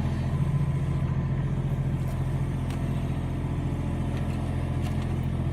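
Excavator's diesel engine running steadily: a low, even drone with a fast throb.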